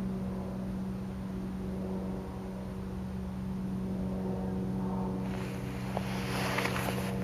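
Steady low engine drone, with a burst of rustling and a few clicks over it from about five seconds in.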